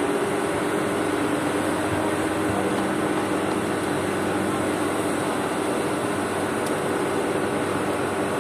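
Steady mechanical hum with a constant low drone, like running air-handling or ventilation machinery.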